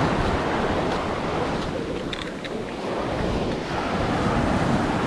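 Sea water sloshing and waves washing around a person standing in the surf, with wind rumbling on the action camera's microphone.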